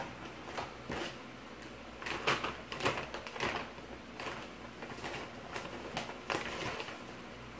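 Large plastic bag being handled and pulled open, crinkling and rustling in irregular bursts.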